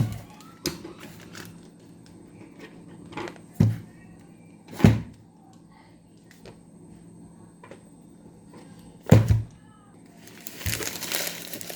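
A handful of dull thumps and knocks as a cardboard parcel is handled and opened, several seconds apart, then packaging starts to crinkle near the end.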